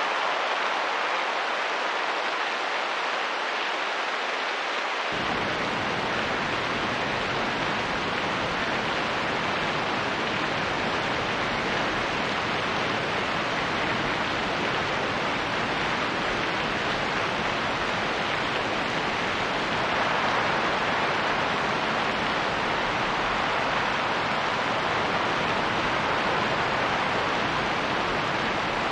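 Steady rain and wind. About five seconds in, a deeper rumble comes in suddenly and stays.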